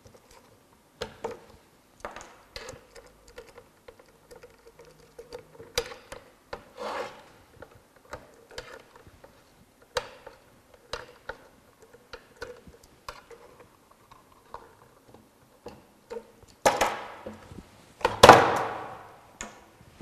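Plastic three-pin Molex connectors being tugged and worked loose from a metal strobe box: scattered clicks, rubbing and scraping of plastic on the aluminium case, with louder scrapes and knocks near the end.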